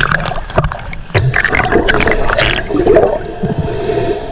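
Water sloshing and splashing close to the microphone, with uneven rushing and several sharp bumps.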